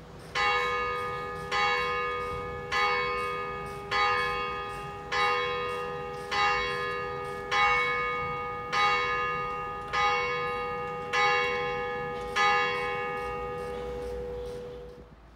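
A single church bell struck eleven times at a steady pace, about one stroke every 1.2 seconds, each stroke ringing on into the next at the same pitch. The ringing hum cuts off suddenly near the end.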